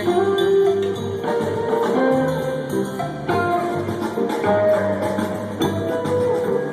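Live rock band playing: an electric guitar lead with sustained and bent notes over bass and drums.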